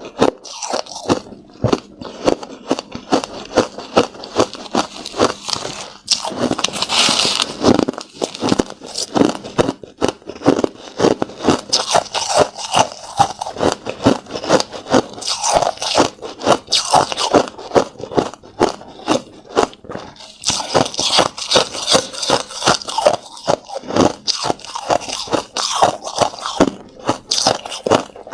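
Close-miked chewing of hard crushed ice: a dense run of sharp, crisp crunches several times a second, briefly broken about six seconds in.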